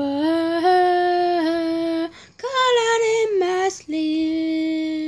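A solo female voice singing a cappella, holding long sustained notes in three phrases, with short breaks about two seconds in and just before four seconds in.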